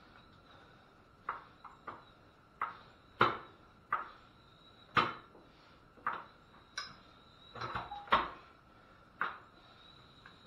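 Hydraulic floor jack being pumped by hand, its handle and linkage clanking sharply about once a second with a faint metallic ring, as the jack presses against an old truck tire to break its bead from the steel wheel.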